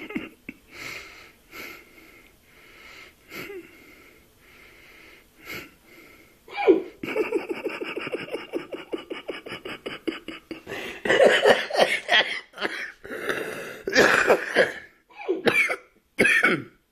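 Drunk man hiccuping in his sleep: short sharp catches in the breath about a second apart, then a louder stretch of rapid, pulsing, cough-like vocal bursts.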